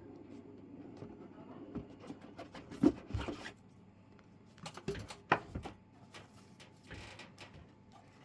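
Irregular clacks and knocks from a Keychron V1 mechanical keyboard, with a few sharp ones around the middle, over a faint low hum in the first couple of seconds.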